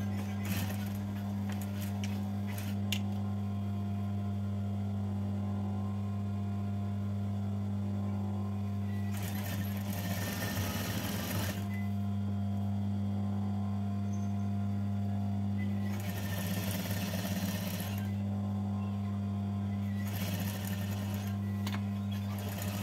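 Sewing machine stitching a seam in three runs, about nine, sixteen and twenty seconds in, over a steady low electric hum.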